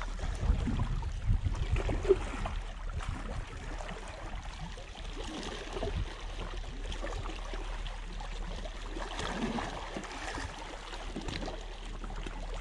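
Small waves lapping and gurgling among the boulders of a rock breakwater, with a few low bumps in the first couple of seconds.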